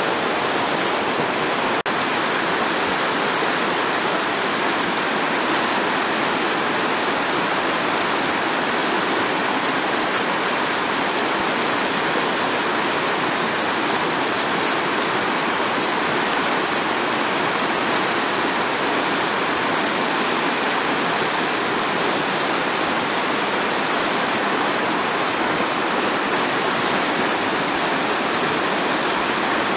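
Fast-flowing river rushing over stones and shallow rapids: a steady, unbroken sound of running water.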